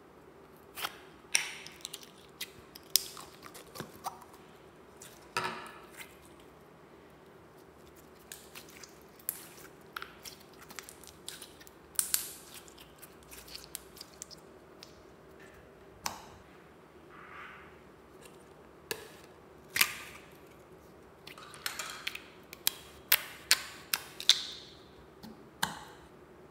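Thick white slime being pulled from a plastic tub and pressed by hand into a glass bowl of mixed slimes: irregular sticky clicks, squelches and small pops, with a quick run of them near the end.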